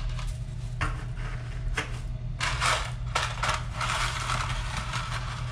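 Dry spaghetti being pulled from its cardboard box: several crinkling, rattling scrapes of the stiff pasta sticks against the box, over a steady low hum.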